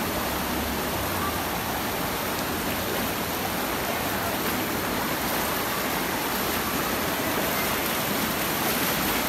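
Muddy floodwater from an overflowing creek rushing down a paved street and churning against a wall: a steady, even rush of water.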